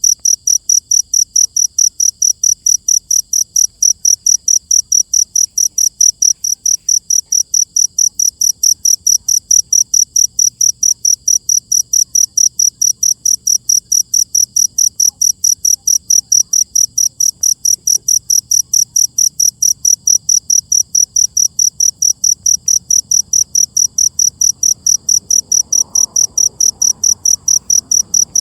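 A cricket chirping steadily and loudly, with even, high-pitched chirps at about three a second.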